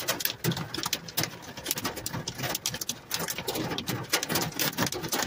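Hail and rain pelting a car's roof and glass, heard from inside the cabin: a dense, irregular clatter of sharp small impacts.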